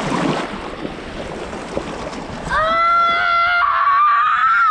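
A child's long, high-pitched scream begins about halfway through, holds one steady pitch for about two seconds, then cuts off abruptly. Before it, shallow surf washes and splashes.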